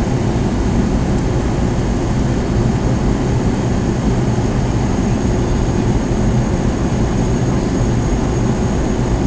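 Steady in-flight cabin noise of a McDonnell Douglas DC-9-51 heard from a forward window seat: an even, low rush of airflow over the fuselage with the drone of its tail-mounted Pratt & Whitney JT8D turbofans behind it, and a faint steady high whine.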